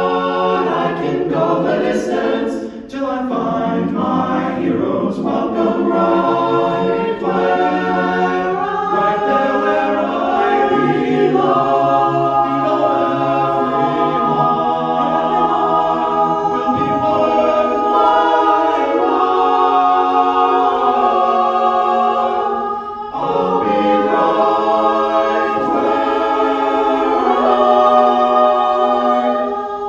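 A cappella vocal group singing in close harmony, with no instruments and no vocal percussion. The voices hold sustained chords that shift every second or two, with a short break about three quarters of the way through.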